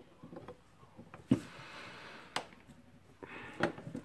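Pliers gripping and straining at a very tightly done-up fastener on a Makita 9565 angle grinder's metal gear head: three sharp metal clicks about a second apart, with faint scraping between them.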